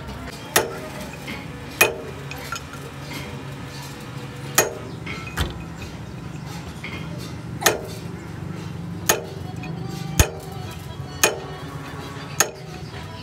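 Hammer striking a steel punch against the parts inside an excavator wheel hub's ring gear: about nine sharp metal-on-metal blows, irregularly spaced roughly a second apart, each ringing briefly, over a steady low hum.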